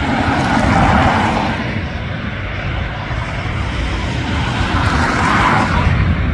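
Jet engines of a taxiing Boeing 737-800, its CFM56-7B turbofans running at low taxi power: a steady rumble and roar that swells slightly about a second in and again near the end.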